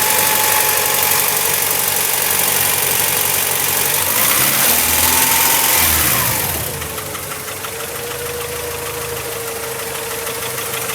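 Honda Prelude's H22A four-cylinder engine running with a terrible noise, which the owner takes for a dying engine. Its speed rises and falls about four to six seconds in, then settles lower and a little quieter.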